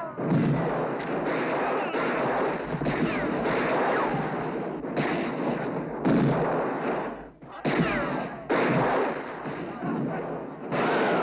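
Dense, continuous gunfire from a film battle scene's soundtrack, with falling whines between the shots. The firing drops away briefly about seven seconds in.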